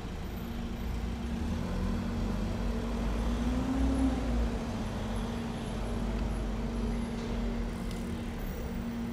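A motor vehicle's engine running steadily, a low rumble with a steady hum whose pitch rises briefly about three to four seconds in.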